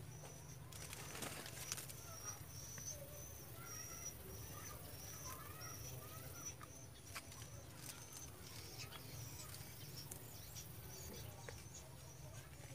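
Outdoor pondside ambience: an insect chirps in a steady run of short, high pulses, birds call now and then, and a low rumble sits underneath. A few sharp clicks come between one and two seconds in.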